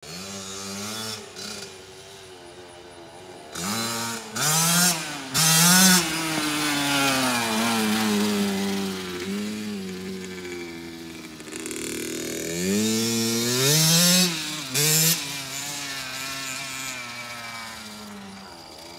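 Small dirt bike's engine revving up and down as it rides, pitch climbing and dropping repeatedly, with hard, loud revs a few seconds in and again about two-thirds of the way through.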